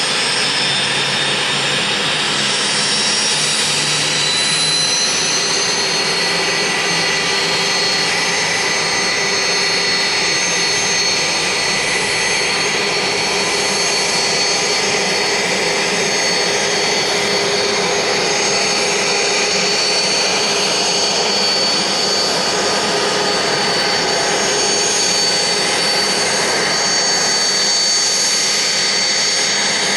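Alouette III helicopter's turbine engine and rotor running on the ground ahead of lift-off. A high turbine whine rises in pitch over the first few seconds, then holds steady over a constant rushing roar.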